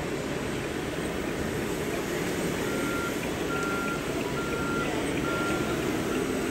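Reversing beeper from a scale RC dump truck's sound module: four steady, high-pitched beeps, each about half a second long and a little under a second apart, starting about two and a half seconds in, with a fainter one near the end. Steady hall background noise runs underneath.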